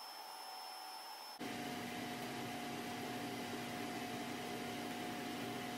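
Steady background hum, like a fan or air handler running, with a faint steady tone in it. It steps up louder about a second and a half in and then holds steady.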